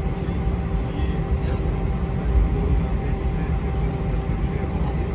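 Steady rumble of an Airbus A321's jet engines and rushing air heard from inside the passenger cabin, with a constant hum running under it.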